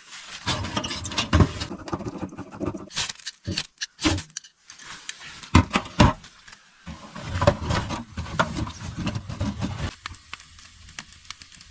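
Repeated knocks, clicks and clatters with stretches of rustling: split firewood being handled and loaded into a small wood stove.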